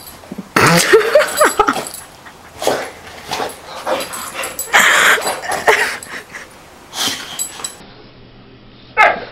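Boxer dog whining and yipping in a string of short, uneven bursts, excited as it pounces at a laser-pointer dot.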